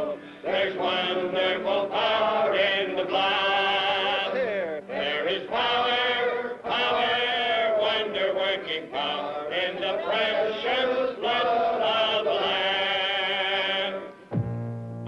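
A group of men singing together in slow, drawn-out notes. Near the end it cuts off abruptly and guitar music begins.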